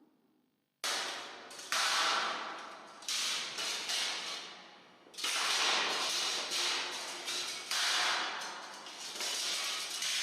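A run of sharp, cracking bangs, about eight of them, each dying away in a long echoing tail, recorded for the natural reverberation of a tunnel.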